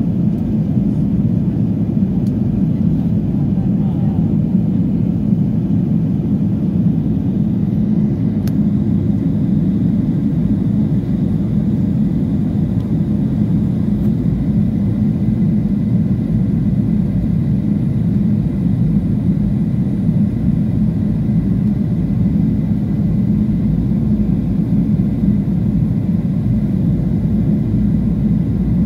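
Steady low rumble of a jet airliner's cabin during descent, engine and airflow noise heard from a window seat near the wing-mounted turbofan. A faint high steady tone joins about a third of the way in.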